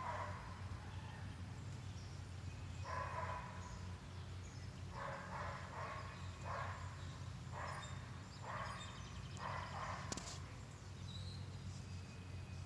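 A dog barking, about eight short barks spaced irregularly, some in quick pairs, over a steady low hum.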